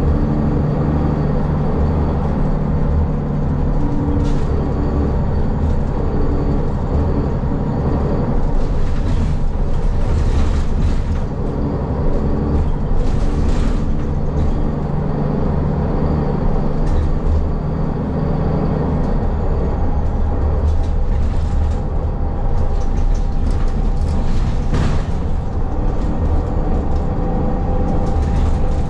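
Inside a city transit bus under way: a steady low engine drone and road rumble, with occasional sharp rattles and knocks through the cabin.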